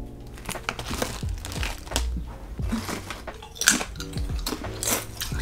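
Crinkling and crunching of barbecue Doritos chips and their bag, a string of short crisp crackles, over background music with a steady bass line.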